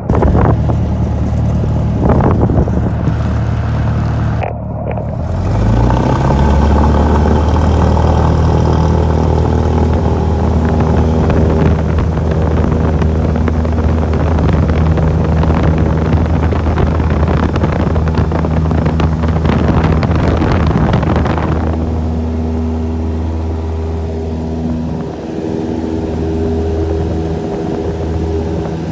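Cessna F152's four-cylinder Lycoming engine heard from inside the cabin, rising in pitch about five seconds in as the throttle is opened for takeoff, then holding a steady full-power drone. A rough rumble rides over it through most of the run and drops away about two-thirds through, leaving the smoother engine note.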